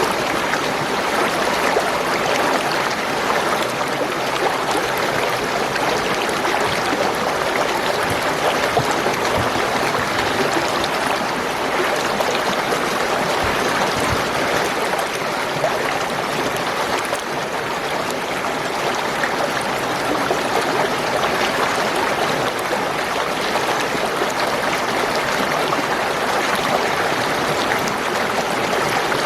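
Spring water flowing and gurgling in a steady stream.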